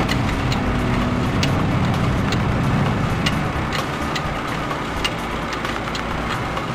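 A UAZ off-road vehicle's engine running steadily as it drives, with a faint steady beat of ticks, about two a second, from background music.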